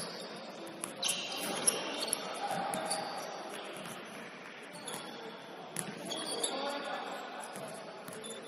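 Pickup basketball game on a hardwood gym floor: a basketball bouncing on the court and sneakers squeaking in short chirps, in an echoing hall, with players' voices underneath.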